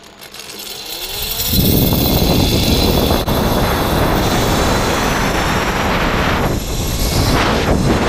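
Zip-line trolley pulleys running along a steel cable at speed, with wind rushing over the microphone: a whir that rises over the first second and a half into a loud, steady rush.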